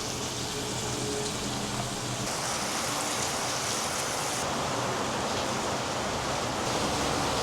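Steady rain falling, a continuous hiss.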